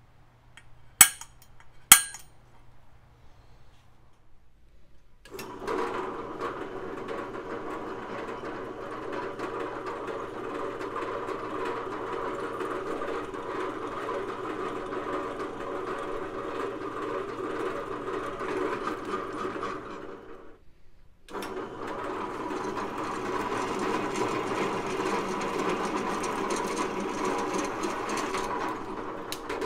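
Two sharp clicks a second apart as the steel is center-punched, then a drill press running while a twist drill bores through steel channel, cutting off curled chips. The drilling stops briefly past the middle, then goes on with a larger bit.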